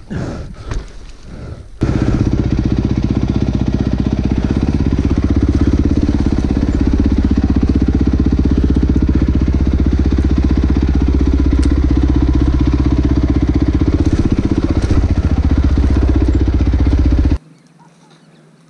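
Dirt bike engine running close by at a steady speed, starting about two seconds in after some scuffling and stopping abruptly near the end.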